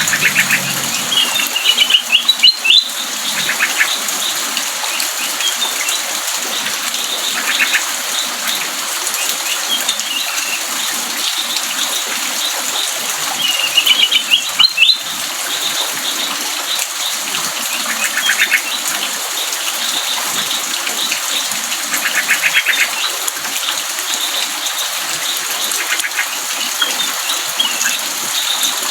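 Kutilang emas bulbul singing short, warbled phrases every few seconds, over a steady background hiss.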